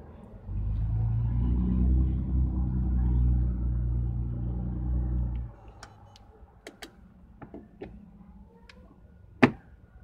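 A motor vehicle's engine running close by for about five seconds, then cutting off suddenly. Afterwards come a few small clicks and taps, with one sharp click near the end.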